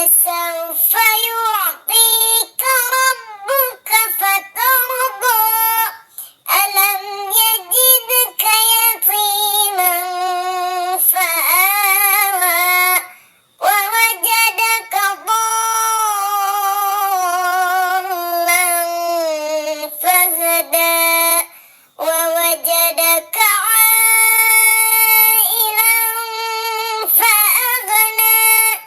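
A high, child-like voice chanting Quranic recitation unaccompanied, in long ornamented melodic phrases with short breaks for breath.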